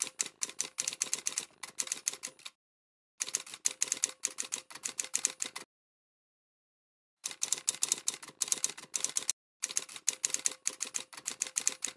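Typewriter sound effect: rapid runs of key clicks, in four runs broken by short gaps of dead silence, matching text being typed out letter by letter.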